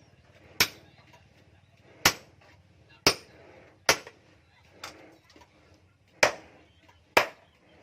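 Hand hammer striking metal on an anvil while an axe head is forged, seven sharp ringing blows at uneven spacing, about one a second, the fifth one lighter.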